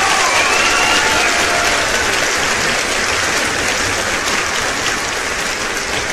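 Steady rushing noise like applause, with faint wavering high tones in the first second or so, slowly easing off.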